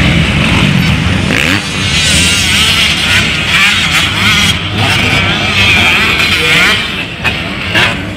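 Motocross dirt-bike engines revving hard as the bikes pass on the track. The sound is loud and continuous, with the pitch rising and falling, and it eases off slightly near the end.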